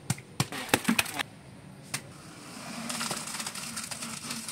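A quick run of sharp knocks as a long-handled digging tool strikes the soil in a trench, then one more knock about two seconds in. A steady rushing noise builds up near the end.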